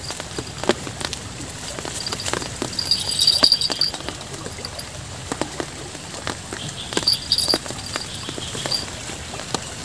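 Light rain: irregular drops tapping on leaves and the phone near the microphone over the steady rush of the river, with short high chirping about three seconds in and again about seven seconds in.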